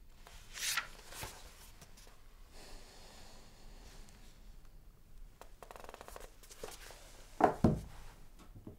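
Quiet rustling of a paperback's pages being turned, then two louder rustles of bedclothes close together near the end as someone shifts in bed.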